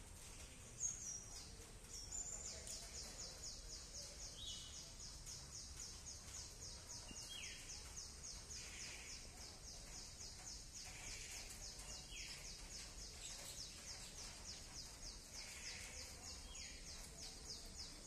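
Faint garden soundscape: an insect's high, rapid pulsing trill, about four pulses a second, starts about two seconds in and keeps going, while birds give short falling calls every few seconds.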